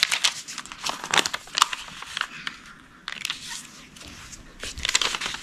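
A square of colored origami paper being folded and creased by hand: irregular rustling and crinkling strokes as each fold is pressed flat.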